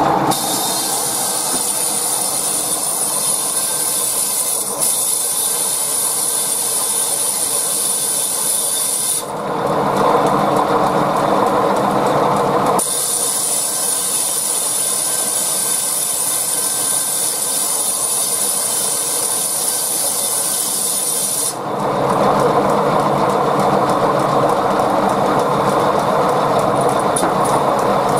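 Large sawmill bandsaw running steadily with a thin, high whine. Twice, about nine seconds in and again just past twenty seconds, the whine gives way to a denser, lower cutting noise as the blade works through the wood.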